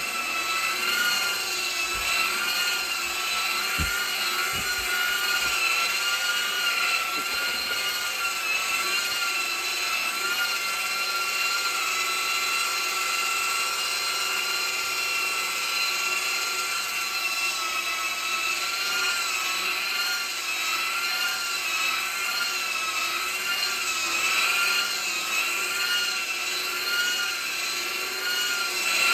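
Carpet vacuum motor running with a steady high whine whose pitch wobbles slightly up and down as it works the carpet. A few faint low knocks sound in the first few seconds.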